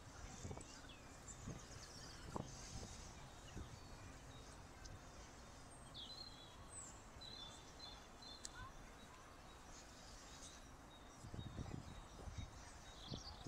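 Faint outdoor park ambience: low wind rumble on the microphone with uneven gusts, and a few short bird chirps about halfway through.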